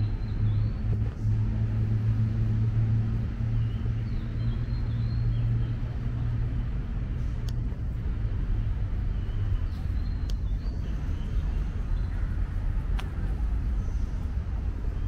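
Steady low rumble of traffic with a deep engine hum that weakens about ten seconds in, and a few short high chirps over it.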